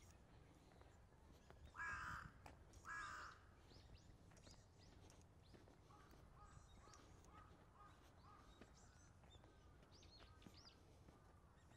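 A crow cawing twice, about a second apart, about two seconds in. After that, smaller birds chirp faintly in runs of short repeated notes.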